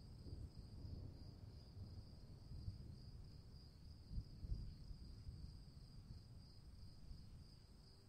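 Faint storm ambience: crickets chirring as a steady high drone over a low, uneven rumble, which swells briefly a little past the middle and eases off toward the end.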